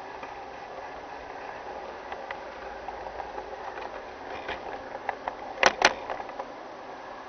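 G scale model train running on garden track, heard from on board: a steady hum of motor and wheels, with a growing patter of wheel clicks at the rail joints and two loud clacks about two-thirds of the way through as it runs over a set of points.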